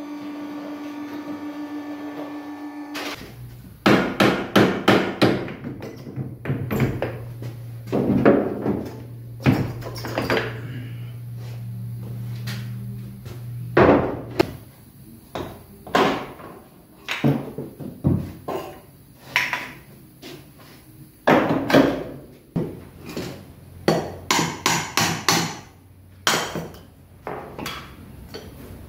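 Hammer blows in quick runs of several strikes with pauses between, each strike ringing briefly, starting about three seconds in. A low steady hum runs under the strikes for several seconds in the middle.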